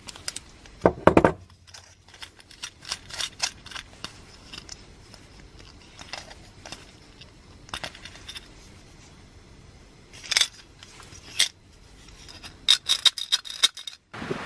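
Small metal clicks and clinks of a bolt, nut and diagonal cutters being worked on a titanium pot lid. There is a sharp pair of snaps about a second in, two more a little later, and a quick run of light rattling clinks near the end.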